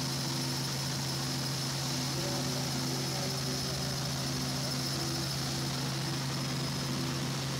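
Helicopter in flight: a steady drone from the engine and rotor, with a constant low hum and a thin high whine.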